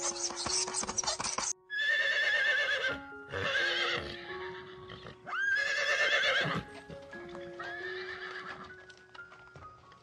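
Horses whinnying: four wavering neighs, the third sweeping sharply up in pitch before it shakes, over background music of sustained steady notes. The first second and a half is a scratchy hiss before the neighs begin.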